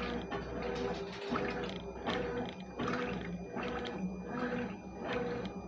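Consul CWS12 washing machine agitating a load: the motor hums in short strokes, about one a second, as the agitator swings back and forth, with water sloshing and splashing through the clothes.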